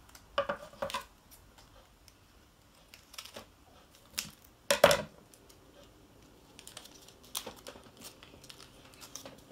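Scissors snipping open a small foil powder packet, with the packet crinkling in the hands: a scatter of short clicks and crackles, the loudest a sharp snip about five seconds in, then a run of small quick ticks near the end.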